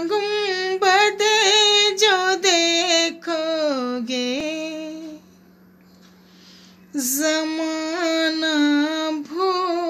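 A woman singing a devotional nazm solo in long, sliding phrases. She breaks off for about two seconds midway, then starts again.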